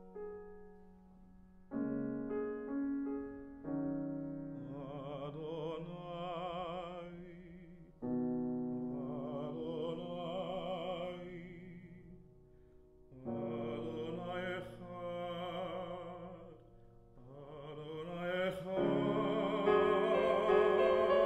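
A male classical singer sings with vibrato, accompanied on grand piano. The piano plays chords alone at first, and the voice comes in about four seconds in, singing several phrases with short breaks between them.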